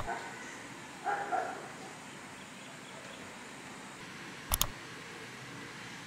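Quiet room hiss broken by two sharp double clicks, one at the very start and one about four and a half seconds in. About a second in come two short, high yelps.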